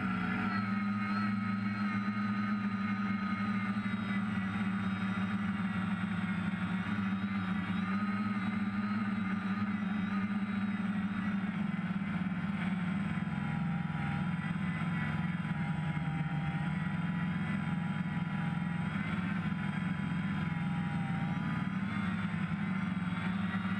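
DJI F550 hexacopter's six electric motors and propellers buzzing steadily in flight, heard close from the camera on its frame. The pitch wavers a little up and down as the motor speeds change.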